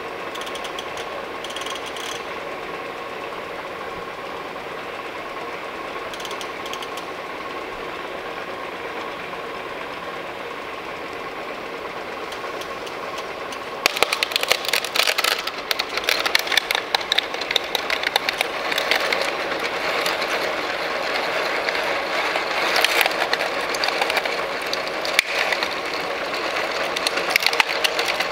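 Electric drill running steadily, then drilling into the plastic casing of a GSM alarm control panel from about 14 seconds in. The sound turns louder and uneven there, with many small clicks as the bit cuts through.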